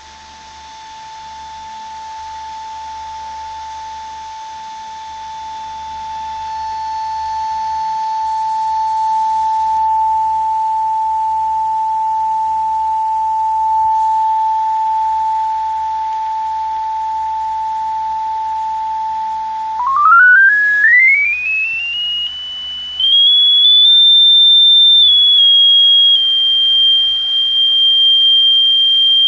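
Sine-wave test tone from a signal generator, played through a speaker by a home-built discrete op-amp amplifier under test. A steady mid-pitched tone grows louder over the first several seconds, then about two-thirds through sweeps up to a much higher tone, steps up briefly, drops back slightly and holds.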